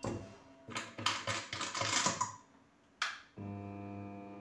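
Metal clicks and rattles as a wire whisk is fitted into a stand mixer's stainless steel bowl, then a single click and a steady low electric motor hum that starts about three and a half seconds in.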